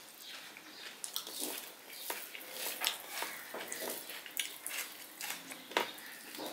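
Close-up eating sounds: chewing with irregular wet, sharp mouth clicks and smacks, along with fingers mixing rice against a steel plate.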